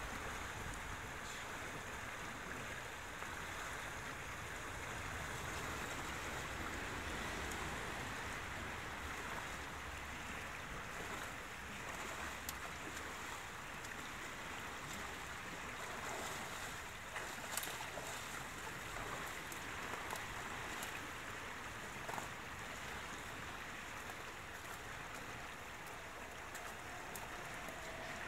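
River water running and splashing around a dirt bike as it is pushed through the shallows, with a few faint knocks.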